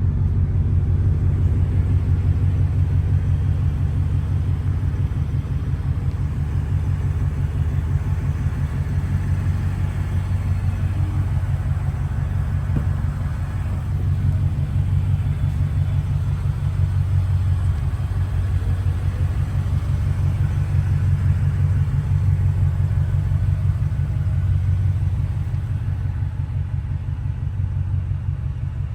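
The 2024 Ford Raptor R's supercharged 5.2-litre V8 running steadily with a deep, even exhaust rumble. There are no revs or changes in pitch.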